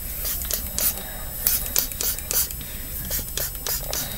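Hand-pumped spray bottle of hair refreshing spray squirted rapidly onto hair, a quick run of short sprays, about four a second.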